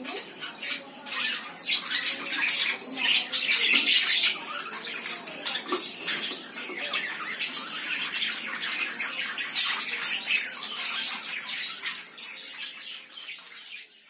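Several budgerigars chirping and squawking in a cage, a dense chatter of short, sharp calls that is loudest around four seconds in and thins out near the end.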